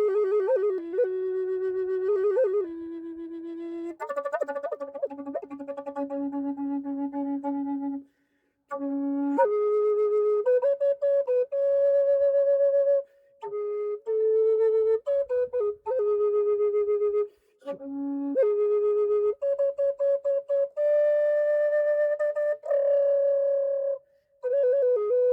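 A black walnut and maple Native American style flute played in slow melodic phrases with quick ornaments and wavering pitch, breaking off for brief pauses between phrases.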